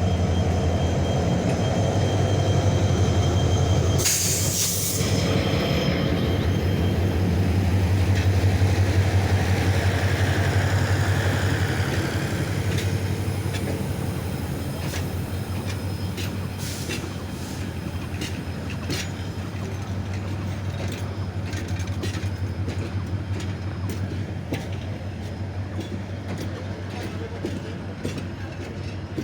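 Passenger train pulled by two diesel locomotives moving off, the engines giving a steady low drone. A short loud rush of noise comes about four seconds in, and from the middle on the wheels click over the rail joints.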